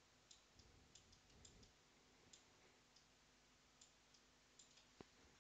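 Near silence with a few faint, irregular clicks of a stylus tapping on a graphics tablet during handwriting; the clearest click comes about five seconds in.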